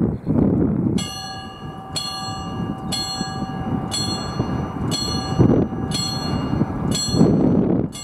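Level crossing warning bell starting about a second in and striking about once a second, signalling an approaching train. Wind noise on the microphone runs underneath.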